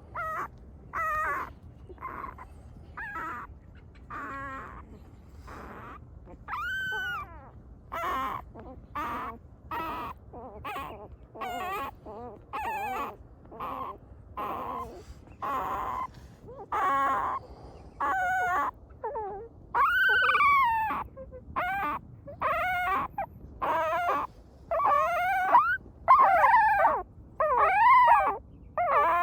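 Young puppy crying in a steady run of short, high-pitched whimpers, about one a second, each rising and falling in pitch, getting louder in the second half.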